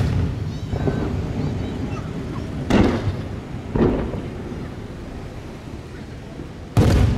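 Aerial firework shells bursting with loud booms: two close together in the middle and one near the end, each followed by a long rolling echo.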